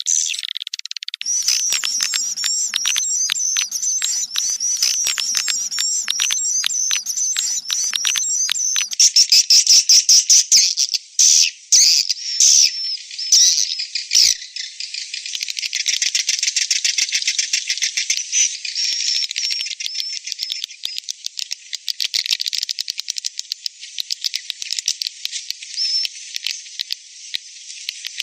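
Edible-nest swiftlet calls: dense, high-pitched chirping and clicking twitter, played as a lure to draw swiftlets into a swiftlet house. It starts as an even repeating twitter, comes in louder broken bursts around the middle, then settles into a thicker continuous twitter.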